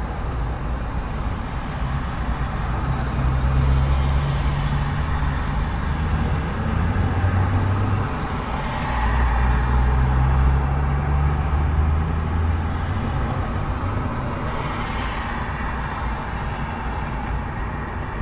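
Steady urban road traffic close by: a constant rush of tyres and engines, with vehicles passing one after another, about three standing out. A low engine rumble swells twice in the middle.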